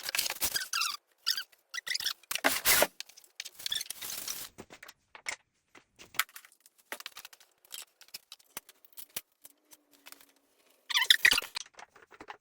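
Clicks, knocks and scraping of parts being handled while a Wahoo Kickr Core bike trainer is reassembled. The clicks come irregularly, with a few longer scraping stretches, the loudest near the end.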